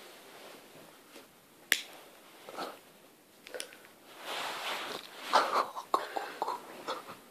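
Pocket lighter being struck: a sharp click about two seconds in and a fainter one near the middle, then the lighter is burning. After that come irregular soft rustling and breathy sounds close to the microphone.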